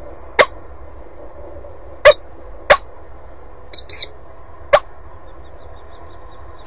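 Peregrine falcon giving sharp, single clipped calls, five of them spaced one to two seconds apart, over a faint steady hum. A few faint higher chirps come around the middle.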